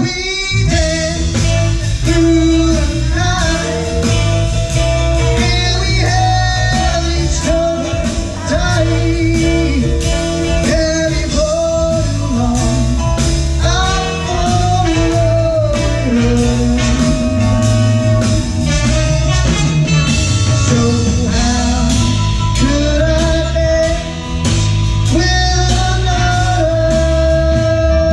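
Live band music: a male singer with an acoustic-electric guitar, backed by a band with drums, singing long held notes over a steady beat.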